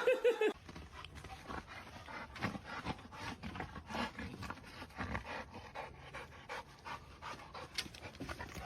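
A dog panting, in quick, soft, irregular breaths.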